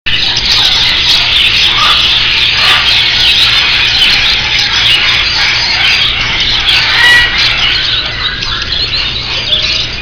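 A cage full of lovebirds chattering and squawking together in a dense, unbroken mass of high, overlapping calls, easing a little near the end.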